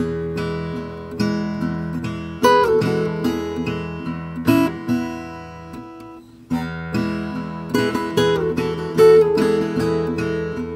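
Acoustic guitar music: plucked notes and chords ringing and dying away, fading to a brief pause about two-thirds of the way through before the playing picks up again.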